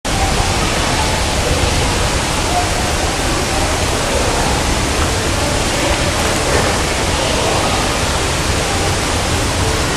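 Steady, even rushing noise of an indoor swimming-pool hall, the hiss of running water and ventilation with a low rumble underneath.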